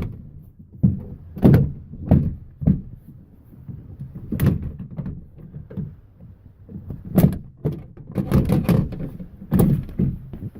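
A minivan's plastic sliding-door trim panel being pried off with a crowbar: a string of sharp knocks and thunks as the panel fasteners pop loose and the panel knocks against the door, with a quick flurry of them near the end.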